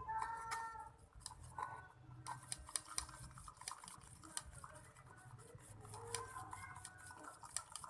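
Spoon stirring a homemade slime mixture in a container, with quick irregular clicks and scrapes against its sides.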